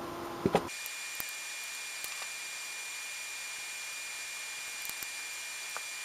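Two sharp knocks less than a second in, where a low hum cuts off abruptly. After that comes a steady hiss with a faint high whine, broken by a few soft taps as the glued bottle is handled.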